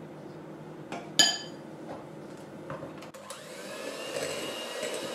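Electric hand mixer beating butter and custard into a buttercream in a glass bowl. The motor is quieter at first, a spoon clinks once sharply against the glass about a second in, and the mixer whirs back up just past halfway.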